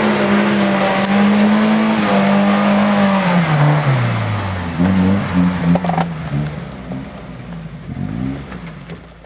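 Suzuki Vitara 4x4 engine revving hard, held at high revs for about three and a half seconds. The revs then drop and rise again several times at a lower pitch, and the engine grows quieter near the end. There is a sharp knock about six seconds in.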